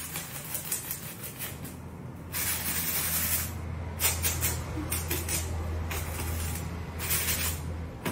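Rustling and scraping of cardboard and paper packaging as hands slide over and pull at a large flat package, over a steady low hum that stops near the end.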